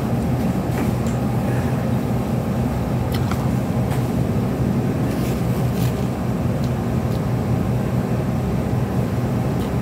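Steady, loud hum of a fan motor, unchanging throughout, with a few faint clicks and mouth sounds of noodles being eaten.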